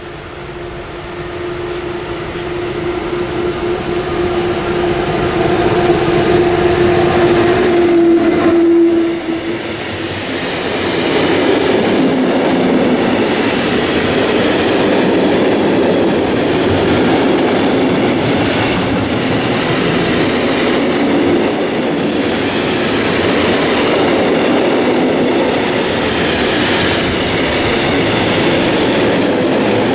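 Freight train of tank wagons passing on an electrified line. The locomotive approaches with a steady whine that grows louder and ends as it passes, about nine seconds in. The tank wagons then roll by with a steady rumbling noise.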